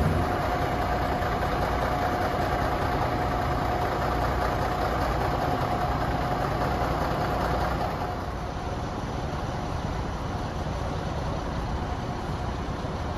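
Diesel engine of a ZNTK Poznań Regio Tramp railbus idling steadily at a station platform. A thin steady whine rides on the engine sound and fades out about two-thirds of the way through.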